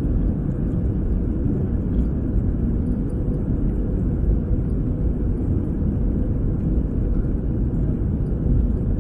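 Steady low rumble inside the cabin of an Airbus A321-200, from its engines and the air around it.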